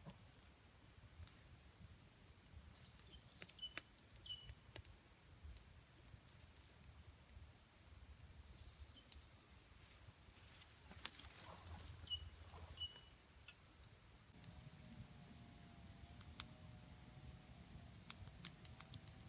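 Faint rainforest ambience: a calling insect gives a short high chirp about once a second, with scattered faint clicks. A faint wavering hum comes in about three-quarters of the way through.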